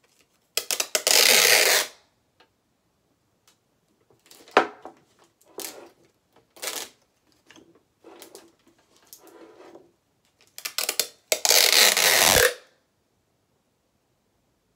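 Packing tape pulled off a handheld dispenser roll in two long, loud rips, one about a second in and one near the end, each lasting about a second. Between them, softer crackling as the tape strips are handled and pressed down.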